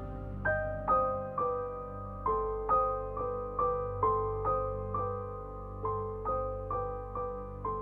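Background music: a slow run of soft piano notes, about two or three a second, each dying away.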